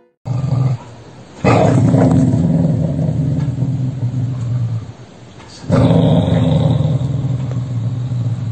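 A dog growling in two long, low spells, the first starting about a second and a half in and the second about two-thirds of the way through.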